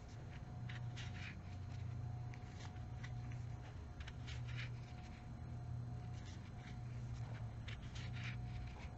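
Crochet hook and yarn being worked close to the microphone: soft, irregular scratches and clicks, over a steady low hum.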